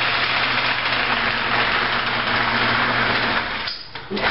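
Wood lathe spinning a large cedar lamp blank while a long lamp auger bores into its end: a steady, loud hiss of cutting wood over the motor's hum. The cutting noise drops away near the end, with a short noise just after.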